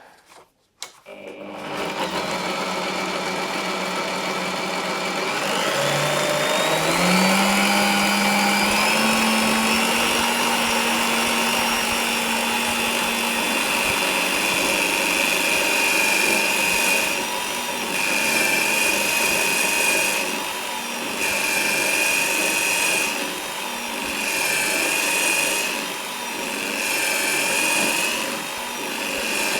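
Bosch PBD 40 bench drill running in second gear: the motor starts about a second in, its whine climbs in pitch a few seconds later as it comes up to speed, then runs steadily. Over the last ten seconds or so the note dips and recovers about every three seconds.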